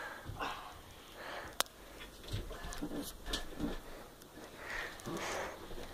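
Boys wrestling: hard breathing and scuffling, with soft thuds of feet and bodies on a rug-covered floor. A single sharp click about a second and a half in.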